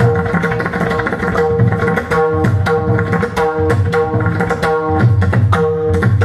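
Pakhawaj (mridang) solo: rapid, dense strokes on the ringing right head and the deep bass head, with a steady pitched tone sustained underneath.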